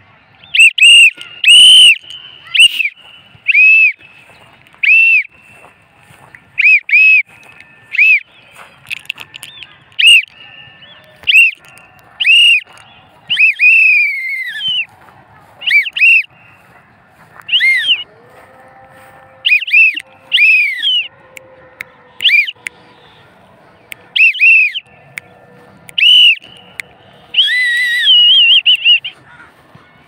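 Loud, short whistled calls, each rising and falling in pitch, repeated about once a second, with a longer falling call about halfway through and a harsher, rougher call near the end.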